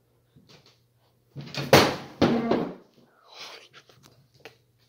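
A loud, sudden thump about a second and a half in, with rustling around it and a short pitched sound just after, then a few faint knocks.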